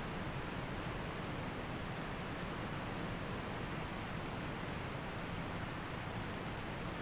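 Waterfall water falling and rushing steadily, an even unbroken noise with no separate splashes or other sounds.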